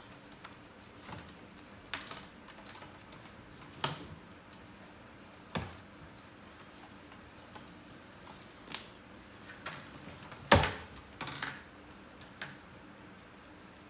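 Red plastic laundry basket being tugged and tipped about by monkeys, knocking and scraping on a tiled floor: irregular sharp clacks, the loudest about ten and a half seconds in.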